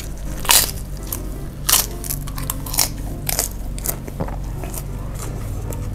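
Kerupuk cracker bitten and chewed close to the microphone. A loud crunch comes about half a second in and another just under two seconds in, followed by a string of smaller crunches over the next couple of seconds.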